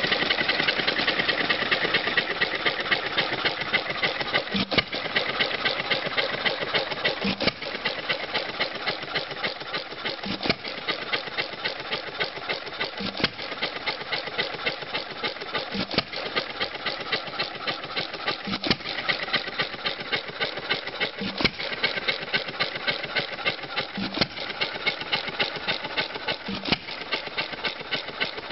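Antique Cushman single-cylinder hit-and-miss engine, converted from a throttle-governed engine, running with a steady rapid clatter as it coasts on its flywheels. A strong stroke comes about every two and a half to three seconds, the firing cycles of hit-and-miss running.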